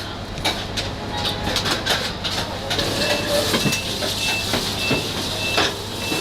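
Busy background of hum and scattered clatter, with a short high electronic beep repeating about twice a second through the second half.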